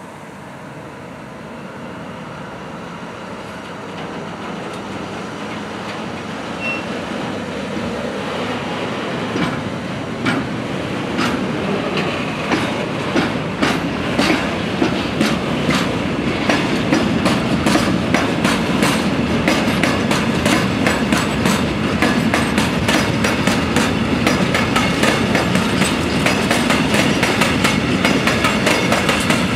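Freight train of loaded bogie hopper wagons rolling past, the wheels clacking over rail joints. The rumble and clacking grow steadily louder, the clacks coming much more often from about halfway through.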